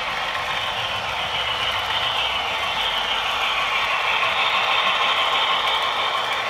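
HO scale model train running: a steady rattle and clatter of metal wheels and gearing on the track, with a faint whine, growing a little louder toward about five seconds in.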